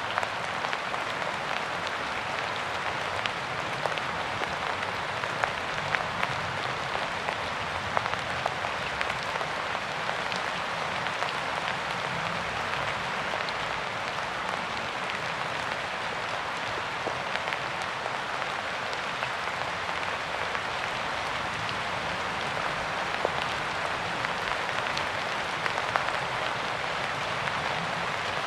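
Steady rain falling, a dense even hiss with many separate drops ticking sharply on a hard surface.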